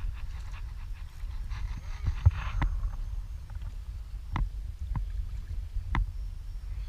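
Low steady wind rumble on the microphone over water lapping against a small boat's hull, with a few short sharp taps scattered through.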